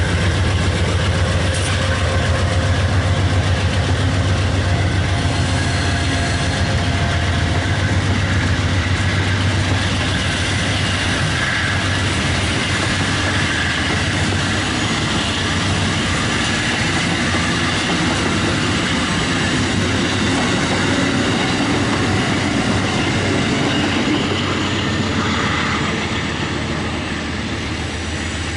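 Amtrak stainless-steel passenger coaches rolling past at close range, wheels running on the rails, with a low hum that fades after about ten seconds. The sound eases off near the end as the last car clears.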